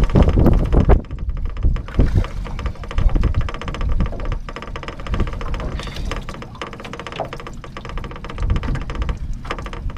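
A hooked walleye thrashing and splashing at the water's surface as it is pulled to the boat, loudest in the first second. Then scattered knocks and clicks as the fish is swung aboard and handled in an aluminium boat.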